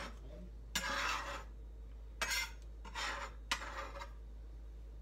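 Chef's knife mincing on a plastic cutting board: several short scraping strokes about a second apart and one sharp tap of the blade on the board.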